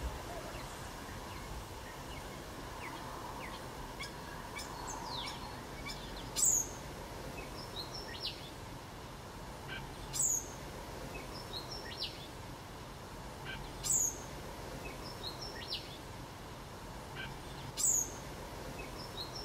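Birds calling over a steady background hiss: a sharp, high, falling call repeats four times about four seconds apart and is the loudest sound, with smaller chirps scattered between.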